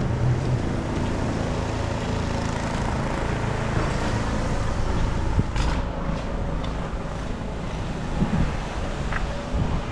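Steady city street traffic noise: the low rumble of vehicles running along the street.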